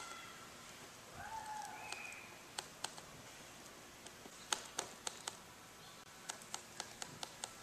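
A paintbrush dabbing resin into fiberglass cloth: a run of light, sharp clicks and taps, about a dozen, most of them in the second half.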